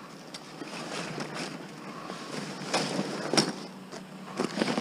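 Scattered knocks, scrapes and clatter of a folded patio umbrella being picked up and handled, the loudest knock a little past three seconds in, over the steady low hum of an idling vehicle.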